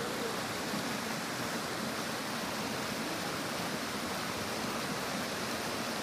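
Steady rush of a small waterfall cascading down a smooth rock chute into a pool.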